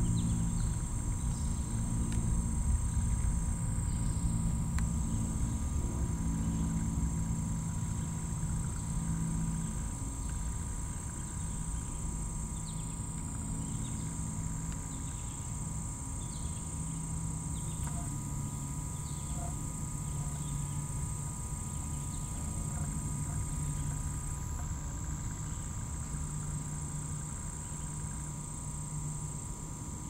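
Steady high-pitched drone of singing insects, with short high chirps repeating about once a second and a low background rumble.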